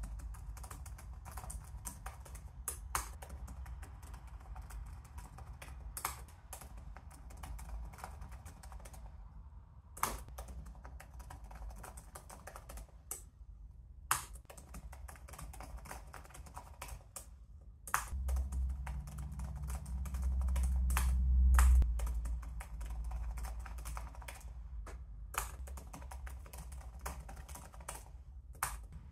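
Fast typing on a Razer Blade laptop keyboard: rapid bursts of key clicks, each a quick run through the alphabet lasting a couple of seconds, with short pauses between runs. A low rumble swells for a few seconds about two-thirds of the way through.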